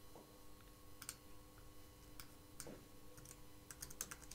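Faint clicks of a computer keyboard and mouse: a few scattered clicks, then a quicker run of keystrokes near the end.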